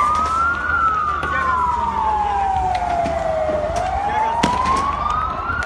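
Police vehicle siren on a slow wail: rising for under a second, falling for about three seconds, then rising again. Several sharp cracks are scattered through it, the loudest about four and a half seconds in.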